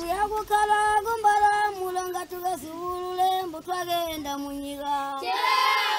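A group of children singing together, holding each note for about half a second to a second. The singing grows louder and fuller about five seconds in.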